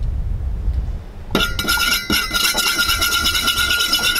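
A long metal bar spoon stirring an old fashioned in a stainless steel tumbler: a quick, continuous run of metallic clinks with the cup ringing, starting about a second in.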